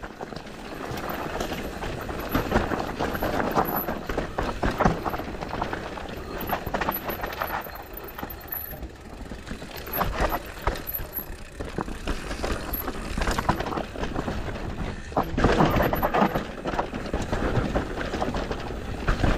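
Mountain bike riding fast down a dirt trail: steady tyre noise on dirt, with frequent rattles and knocks from the bike over bumps.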